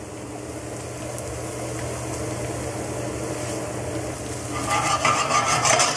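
Chopped shallot and garlic sweating in olive oil in a stainless steel pan, a steady sizzle over a low hum. About four and a half seconds in, a wooden spoon starts stirring and scraping through the pan, and the sound gets louder and more clattery.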